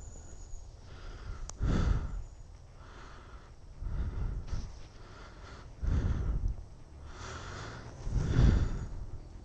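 A person breathing hard close to the microphone, with a heavy breath about every two seconds. No engine is running.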